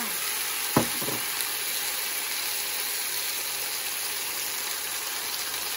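Beef and vegetables sizzling steadily on a preheated iron sizzle plate, with a single sharp knock just under a second in.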